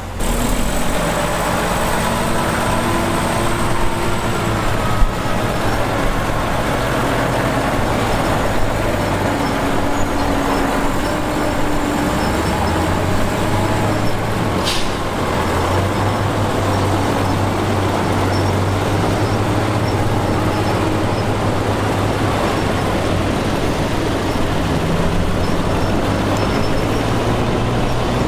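Heavy diesel construction machinery running steadily at a worksite, its engine holding a low hum, with one sharp knock about five seconds in.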